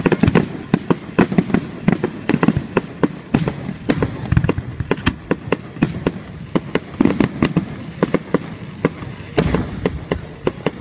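Aerial fireworks bursting: many sharp bangs and pops in quick, irregular succession, several a second.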